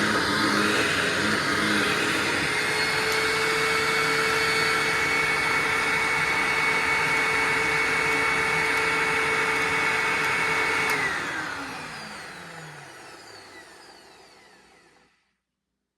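1999 Hoover Ultra SP WindTunnel upright vacuum cleaner running steadily with a held whine, then switched off about two-thirds of the way through, its motor winding down with a falling whine until it goes silent.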